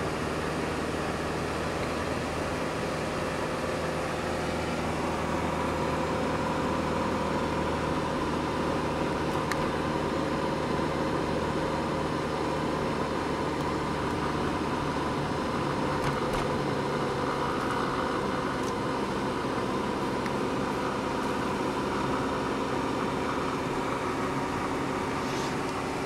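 Steady engine hum and road noise inside a moving Citroën car, with a few faint ticks.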